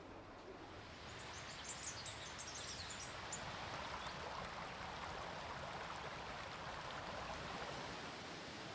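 Running water from a mountain stream, a steady rush, with a few short high bird chirps about two seconds in.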